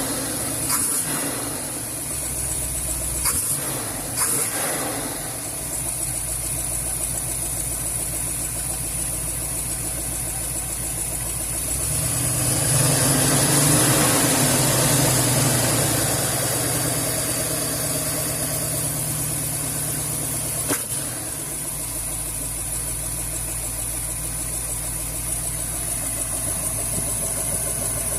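1978 Ford 351 Windsor V8 with an RV cam idling, carrying a constant 'wup wup wup' in time with engine speed that acts like a dead cylinder. It gets louder for a few seconds around the middle, then settles back to idle.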